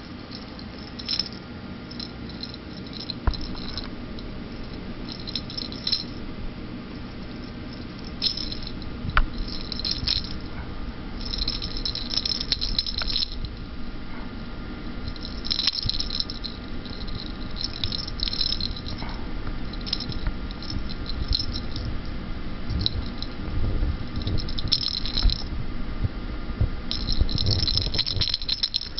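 Hollow plastic cat-toy ball with a rattle inside, rattling in short bursts every second or two as a kitten bats and chases it over carpet, with a few soft knocks between.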